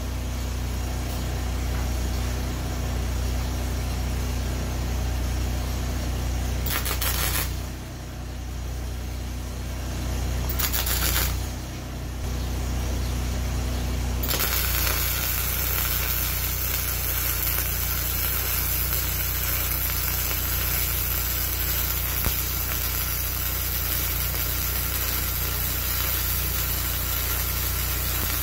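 Hobart Handler 125 flux-core MIG welder striking its arc on quarter-inch steel plate: two short crackling tack welds about 7 and 11 seconds in, then a steady sizzling weld bead from about halfway that stops just before the end. Under it the engine of the Hobart Champion Elite welder-generator powering the machine hums steadily.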